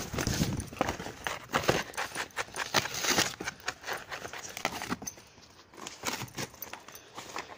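A dog tearing and chewing corrugated cardboard: irregular ripping and crackling, busiest in the first three seconds and sparser after.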